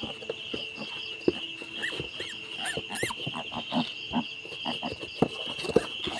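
Newborn piglets squealing and grunting in short calls, a few high arched squeaks among them, over a steady high insect chirring.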